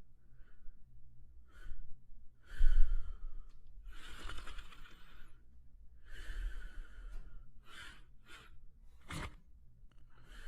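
French spaniel asleep, breathing heavily and snoring softly in airy breaths, about one every second or so, the loudest about three seconds in. A brief sharp sound comes near the end.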